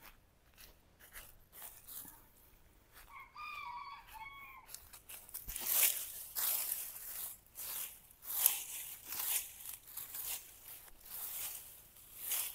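A hen gives one drawn-out call a few seconds in. After that come irregular crunching steps and rustling close by, louder than the call.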